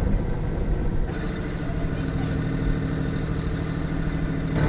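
Engine of a mussel-raft work boat running steadily with a low, even hum. It eases slightly about a second in and grows louder near the end.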